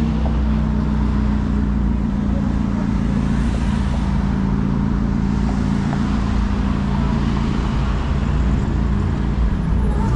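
Street traffic: a steady, low engine hum from a nearby vehicle, with other cars passing.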